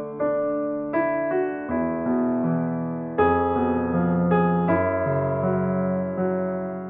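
Background music: slow piano or electric piano chords, each struck and left to fade before the next.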